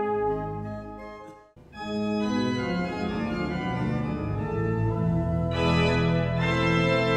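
A piece for trumpet and pipe organ dies away with a last held chord about a second and a half in. Then a pipe organ alone begins playing sustained chords, growing fuller and brighter about five and a half seconds in.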